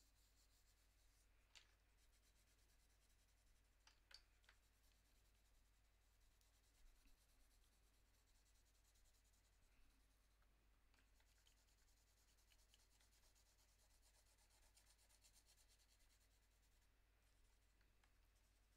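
Very faint scratching of a Prismacolor Premier coloured pencil shading lightly over toned paper, with a few small ticks in the first five seconds.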